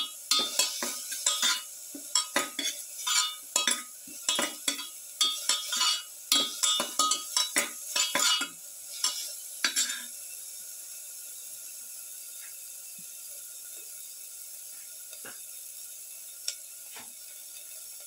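A perforated spatula scraping and knocking against a metal pan, several strokes a second, as sliced onions and shallots are stirred in hot oil. The stirring stops about ten seconds in, leaving a steady sizzle of the frying.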